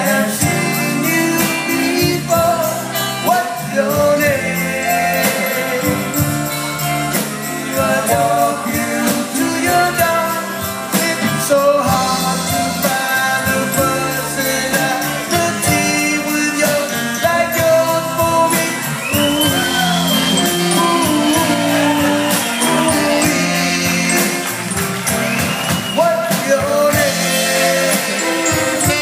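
Live band playing a song, with drum kit, electric guitar and saxophone; heard as a room recording with shifting melody lines over a steady beat.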